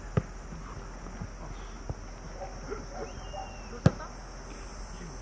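A football kicked in a run of passes: a few sharp thuds of boot on ball, the loudest near four seconds in, with faint calls of players between them.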